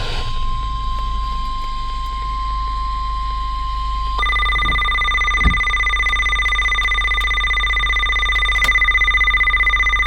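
Emergency alert tones for a tornado warning: a steady single-pitch tone, the NOAA Weather Radio 1050 Hz warning alarm tone, for about four seconds, then a louder, buzzier Emergency Alert System attention tone that holds for the rest.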